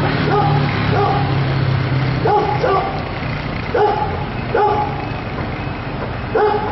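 A dog barking repeatedly, short single barks about a second apart, over a low steady hum that fades out about two and a half seconds in.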